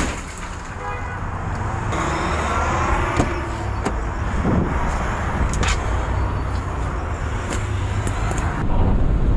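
Rented box truck's engine running with a steady low rumble, with a few light knocks and rattles.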